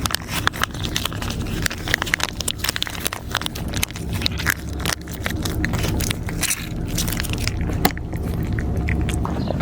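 Stray cats crunching dry cat food: a dense run of irregular crunchy clicks over a steady low rumble.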